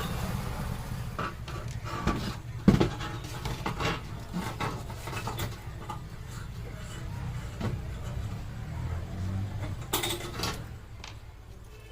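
Scattered knocks and clicks of objects being handled, the sharpest about three seconds in, over a steady low hum.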